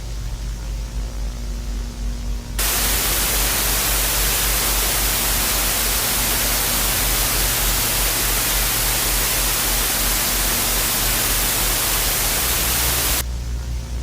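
Loud, even static hiss that cuts in suddenly about two and a half seconds in and stops just as suddenly about ten seconds later, over a low steady hum that carries on before and after.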